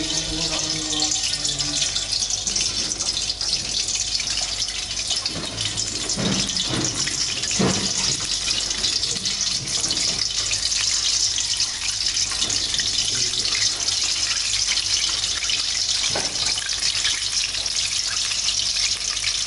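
Balls of pempek adaan (fish and sago dough) frying in hot oil in a wok, a steady sizzle, with a few short knocks partway through.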